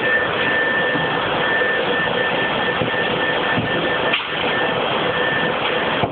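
Steady din of factory machinery: a loud even rushing noise with a constant high whine and a lower hum running through it, dipping briefly about four seconds in.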